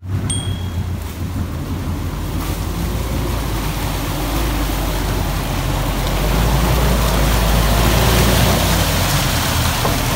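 Off-road vehicle's engine running low under a loud rushing of water that builds over the first six seconds and then holds steady.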